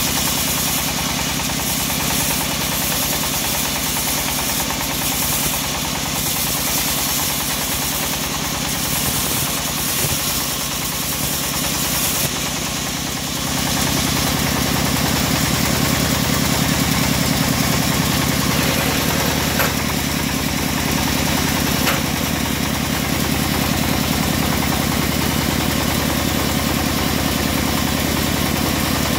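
A homemade band sawmill sawing a mahogany log, the blade running through the wood over the machine's steady drone. About 13 seconds in the cut ends, and the machine runs on unloaded, lower and steadier.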